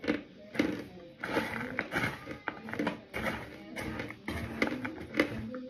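Close-up chewing of a mouthful of cornstarch, a wet crunch with many sharp squeaky crackles and clicks coming in irregular bursts.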